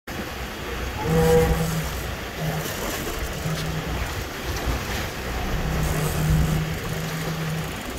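A boat's engine running under wind and choppy water, with a low hum that cuts in and out several times.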